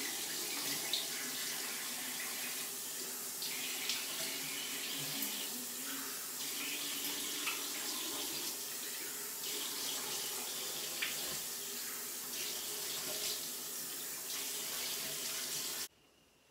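Bathroom sink tap running steadily while a face is rinsed under it, with a few light splashes. The water stops abruptly near the end.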